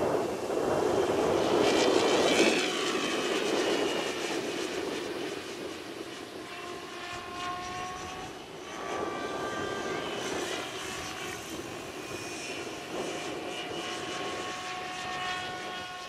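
Align T-REX 760 RC helicopter flying overhead in strong wind: thin, whining tones from its rotor and motor that shift in pitch as it manoeuvres, over a rushing wind noise that is loudest in the first couple of seconds.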